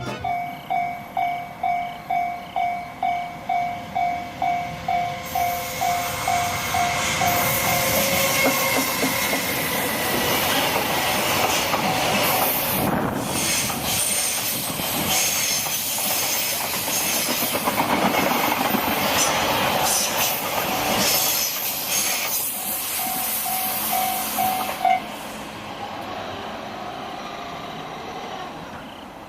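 Japanese level-crossing alarm ringing, a single tone pulsing about twice a second, while a freight train approaches and passes through the crossing with a long rumble and wheel clatter. The alarm stops about four-fifths of the way in, and the train's noise fades as the last wagons go by.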